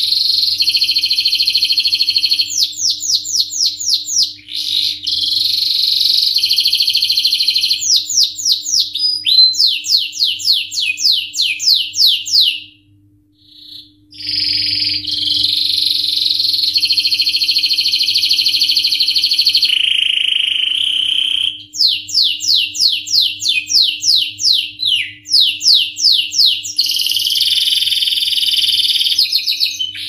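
Domestic canary singing: long rolling trills alternating with runs of quick separate notes, about five a second, with a break of about a second and a half midway.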